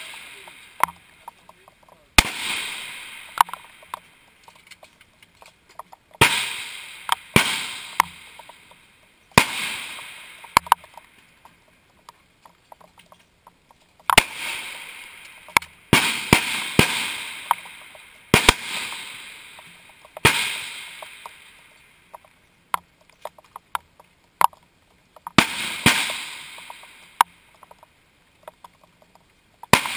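High-powered rifle shots on a firing line: about a dozen sharp cracks at irregular intervals, each followed by a long fading echo, with small clicks between them.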